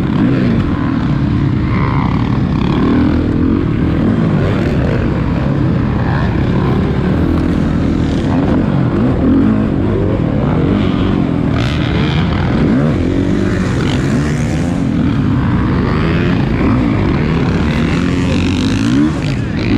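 Several motocross dirt bikes racing, their engines revving up and down over and over and overlapping one another.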